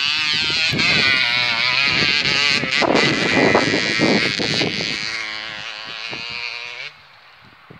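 Small child's dirt bike engine running and revving up and down as it rides the track, then cutting off sharply about seven seconds in.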